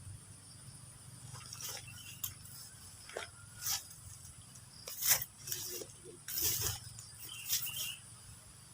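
Steady high-pitched insect chirring, with several short rustling, scraping noises at irregular intervals.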